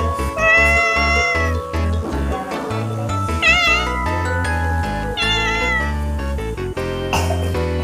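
A cat meowing three times over background music with a steady bass line: a long meow about half a second in, a shorter wavering one about three and a half seconds in, and another about five seconds in.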